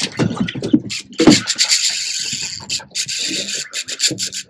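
Fishing reel rasping steadily for about three seconds, with a short break in the middle, while a hooked fish is being fought.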